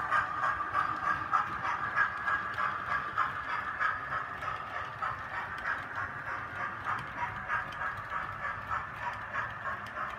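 Hornby model Mallard train running on a model railway layout: a steady rhythmic clicking of wheels over the track, a few clicks a second, over a continuous running hum.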